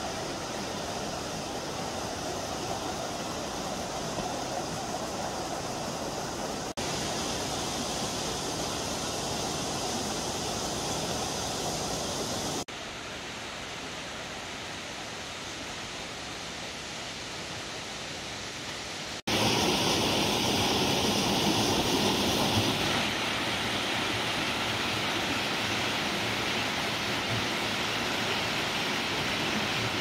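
Steady rush of falling water from Minoo Falls. It comes in several cut-together clips, so the loudness changes abruptly about a quarter of the way in, near halfway, and about two-thirds in, where it becomes loudest and brightest.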